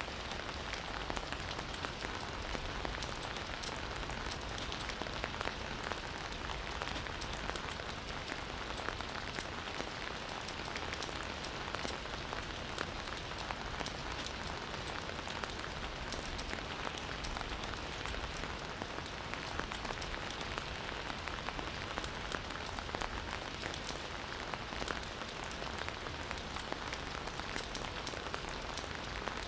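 Campfire burning and crackling steadily, with many small sharp pops over a constant hiss.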